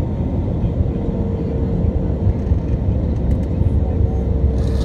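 Airliner cabin noise in flight: a steady low rumble of the jet engines and airflow, with a constant hum tone over it. A brief hiss comes in near the end.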